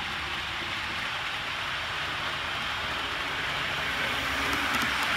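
OO gauge model HST train running along the layout's track: a steady hissing rumble of wheels and motor that grows louder near the end as it comes close, with light ticking.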